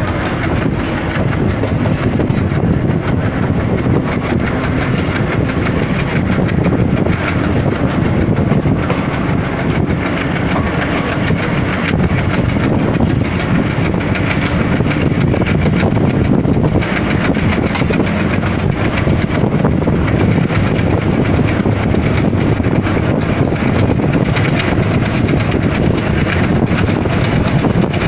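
Passenger train running along the track: steady noise of the coaches' wheels on the rails, heard from an open door close to the wheels.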